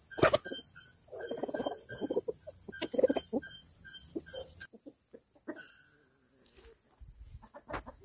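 Hens clucking as they forage. Behind them a short high note repeats about three times a second until an abrupt cut a little before five seconds in. After a quieter stretch the clucking picks up again near the end.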